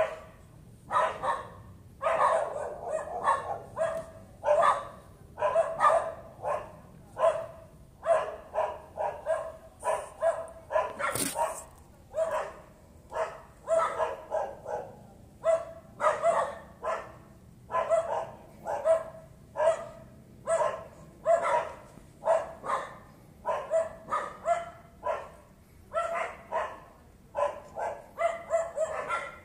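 A dog barking over and over, about two barks a second, without let-up: persistent nuisance barking. One sharp click comes about eleven seconds in.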